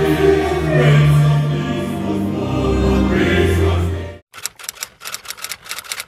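A church choir singing together. About four seconds in it cuts off abruptly, followed by a quick run of sharp clicks.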